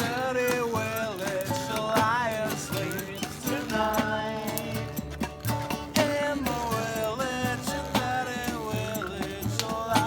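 Live campfire sing-along: voices singing a melody over a strummed acoustic guitar with a steady beat.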